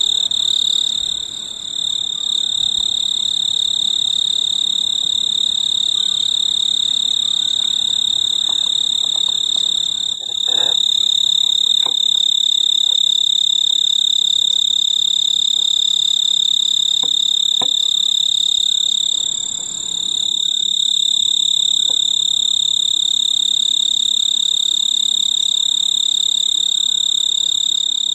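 Male snowy tree cricket stridulating: a steady, high-pitched trill, its calling song to attract a mate, that dips briefly about ten and twenty seconds in.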